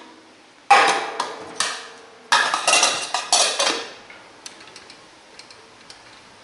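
Small metal camp pots and a lid being handled and set down on a stainless-steel table. There is a sharp clang with a short ring about a second in, a run of clattering clinks from about two to four seconds in, then a few light ticks.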